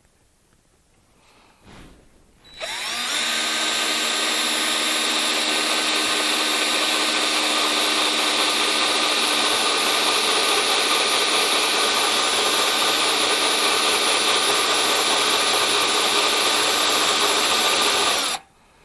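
Electric drill with a three-quarter-inch bit boring a hole through the cabinet wall. It spins up about two and a half seconds in, runs steadily under load for about fifteen seconds, and stops suddenly near the end.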